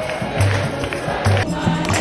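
A large choir singing a hymn over a steady beat and a repeating bass line, with hand clapping. The sound changes abruptly about one and a half seconds in, where the recording is cut.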